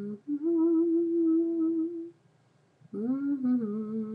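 A person humming idly without words: a short note, then a long held note, and after a short pause another long note that dips in pitch partway through.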